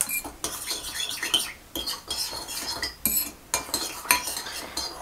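Metal spoon stirring and scraping in a bowl, clinking irregularly against its sides, as yeast and sugar are mixed into a little lukewarm water to activate the yeast.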